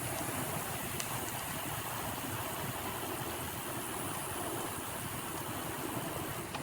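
Steady ride noise from a bicycle on a paved trail: wind rumbling on the phone's microphone over the tyres rolling on pavement, with a light click about a second in.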